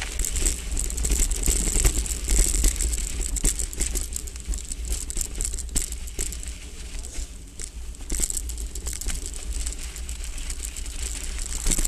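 Keychain link rattling rapidly and without let-up as the hardtail mountain bike rides over a rough dirt track, over a steady low rumble.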